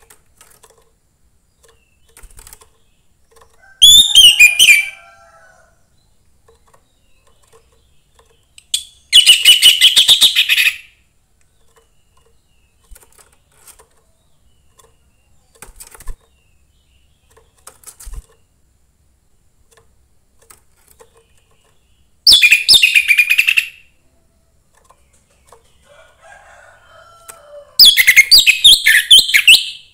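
Young wild-caught orange-headed thrush singing in four loud, rich, warbling phrases of a second or two each, several seconds apart, with faint short calls in the gaps.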